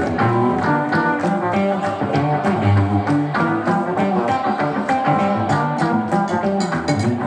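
Live funk band playing an instrumental groove, with guitar to the fore over bass and drums.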